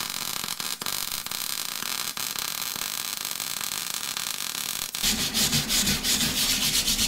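Arc welding on steel plate, a steady crackling sizzle with sharp pops of spatter. About five seconds in it gives way to a hand wire brush scrubbing back and forth over the fresh weld, in rough repeated strokes.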